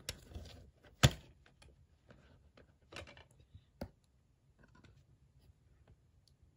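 Handling of a DVD and its plastic case: a few sharp plastic clicks, the loudest about a second in, with two more near the three- and four-second marks and light rustling between.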